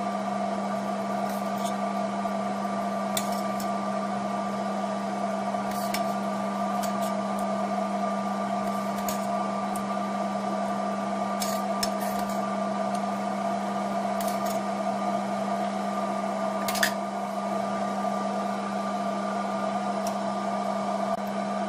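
A kitchen appliance hums steadily, with a low drone and a couple of higher steady tones. A metal ladle clicks now and then against the stainless steel pot as the stew is stirred, most sharply about three-quarters of the way through.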